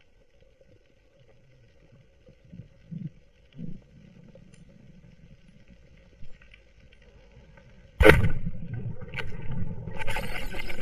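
Underwater speargun shot: a sudden loud crack about eight seconds in, after a faint steady hum and a few soft low thumps. A continuous loud rushing water noise with crackling follows.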